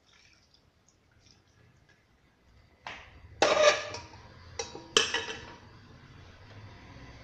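Metal cookware clanking at the stove: four sharp clanks, the second and last the loudest, each ringing briefly.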